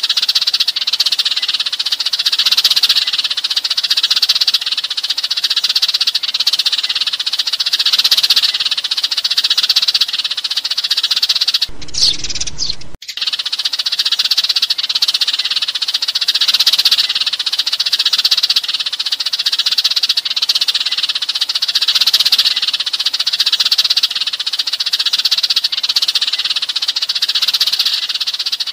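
A flock of sparrows chirping and chattering continuously and densely: the gathering call used to lure sparrows in. The chatter breaks off for about a second near the middle, where a different low sound briefly takes its place.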